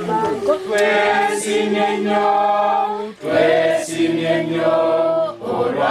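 A group of worshippers singing a song of praise together in long held notes, breaking off briefly about three seconds in and again near the end.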